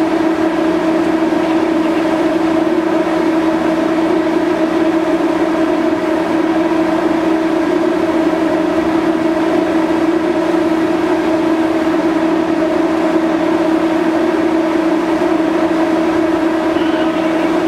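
Onboard machinery of the car ferry MV Salish Eagle running steadily at berth: a loud, unchanging drone with a strong hum.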